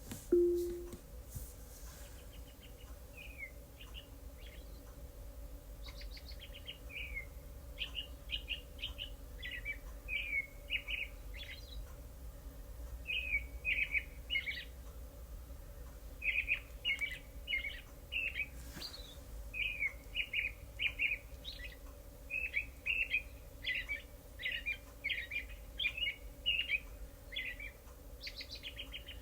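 Recorded birdsong soundscape played back by a sleep-sounds app: many short, quick chirps and tweets coming in clusters, over a faint steady hum.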